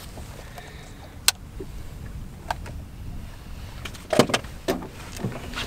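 Handling knocks on a bass boat deck while a freshly weighed smallmouth bass is held and lowered: a sharp click about a second in, then a cluster of knocks and thumps around four seconds in, over a low steady hum.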